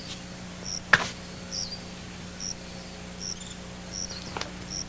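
Crickets chirping, short high chirps a little more than once a second, over a low steady hum. One sharp click about a second in is the loudest sound.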